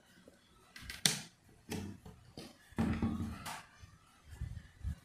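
A scattered series of short knocks and clicks from hands handling a small portable speaker and its control panel.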